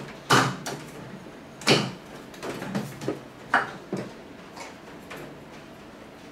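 Electric fan parts knocking and clacking as they are handled and fitted together during reassembly: three louder knocks about a second and a half apart, with smaller clicks between them.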